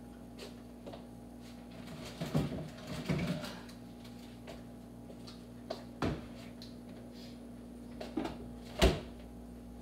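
Scattered knocks and clunks of kitchen handling, like a cupboard or drawer being opened and shut, with the sharpest knock near the end, over a faint steady hum.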